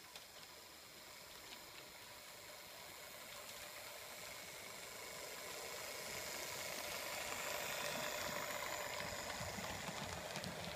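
H0-scale model train of an NSB Di 3 diesel locomotive and passenger coaches running on the track: the rolling of wheels on rail and the hum of its motor, steadily louder as the train approaches and passes close by.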